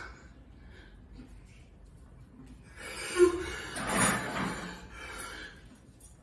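A man crying out in pain in hard, strained breaths, with a short voiced cry. It starts about three seconds in and lasts about two seconds, as a clothespin pinches the skin of his chest.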